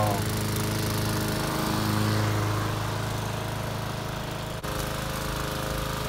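Gasoline engine of a 20-inch walk-behind lawn mower, converted to remote control, running steadily as the mower drives and cuts grass. The sound breaks off briefly about two-thirds of the way through.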